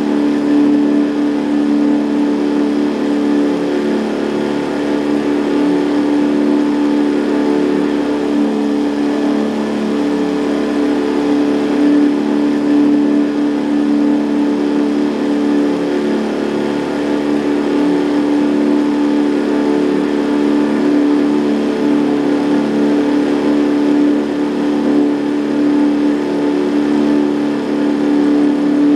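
Outboard motor running steadily at a constant speed, a continuous even drone that holds one pitch.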